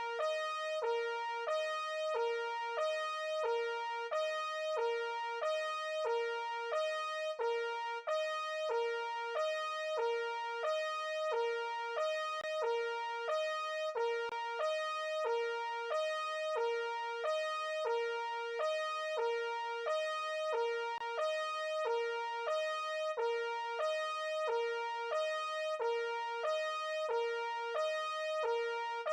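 Mock emergency alert alarm: a synthesized keyboard-like tone alternating between a lower and a higher note, the pair repeating about once a second without a break.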